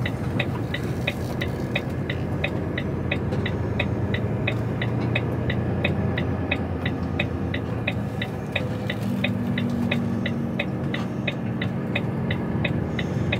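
Turn-signal relay ticking evenly, about three ticks a second, inside a lorry cab over the steady drone of the diesel engine and tyre noise as the truck rounds a roundabout.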